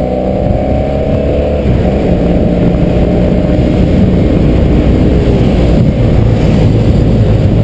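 BMW F800GS parallel-twin engine running under way, with wind and road rumble on the helmet-mounted microphone. The engine note steps down about a second and a half in, as at a gear change.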